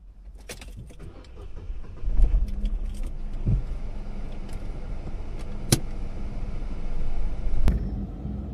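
Keys jingle and click inside the car, then a low rumble comes in about two seconds in and runs on steadily, like a car engine starting and idling, with three sharp knocks over it.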